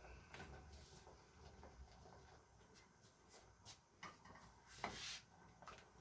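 Near silence in a small room, with a few faint light knocks and a brief rustle of handling about five seconds in.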